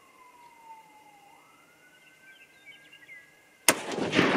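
A faint distant siren wails, falling slowly in pitch and then rising again. Near the end a single .243 Winchester rifle shot goes off, the loudest sound, its report carrying on for about a second.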